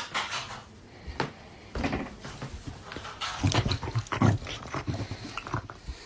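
A dog vocalizing in short, irregular bursts.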